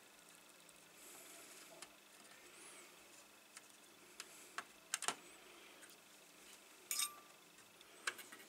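Faint clicks and light scraping of a soldering iron tip on the metal solder lugs of a terminal strip, with a sharp click about five seconds in and a brief hiss about seven seconds in.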